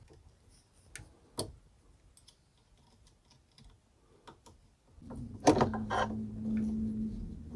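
Scattered small clicks and taps of pliers and plastic parts being handled at a 3D printer's hotend carriage. About five seconds in, a steady low hum with a held tone starts, and two sharp clicks follow close together, the loudest sounds here.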